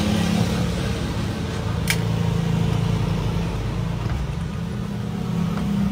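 A running engine's steady low hum, with one sharp click about two seconds in.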